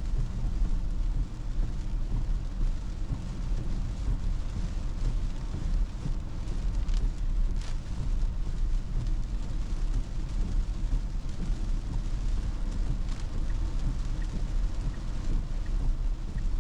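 Steady low rumble of road and tyre noise inside a Tesla's cabin on a rain-wet road, with rain hiss over it and a brief louder hiss about halfway through.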